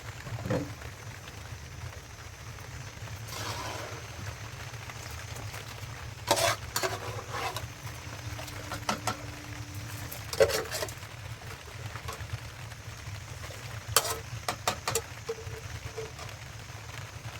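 A few scattered knocks and clatters, like hard objects being handled, over a steady low hum.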